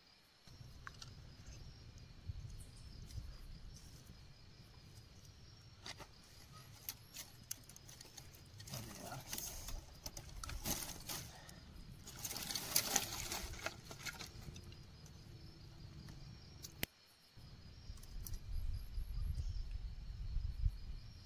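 Dry thorny twigs snapping and a small campfire crackling as the twigs are broken and fed in, with two louder spells of crackling and snapping near the middle. Wind rumbles on the microphone underneath.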